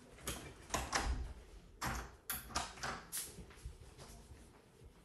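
A string of short, irregular knocks and clicks, about eight in the first three and a half seconds, then quieter.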